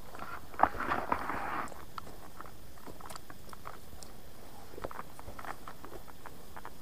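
Footsteps and rustling on a damp forest trail: scattered crunches and clicks, with a louder burst of crunching about a second in.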